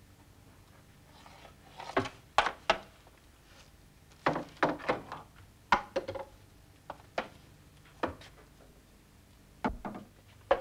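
A series of irregular sharp knocks and thumps, about a dozen, some in quick pairs or clusters, over a faint steady hum.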